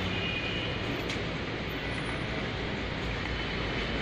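Steady din of city street traffic: a low rumble under an even hiss, with a few faint thin high tones.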